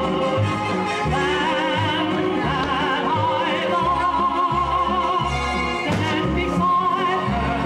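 Orchestral music with an operatic singing voice holding long notes with a wide vibrato.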